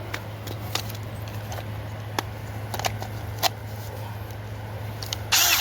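Several sharp metallic knocks at irregular intervals, hammer blows struck on the protected crankshaft nut of a Predator 420cc engine to shock its flywheel loose. A brief, louder harsh noise comes near the end, over a steady low hum.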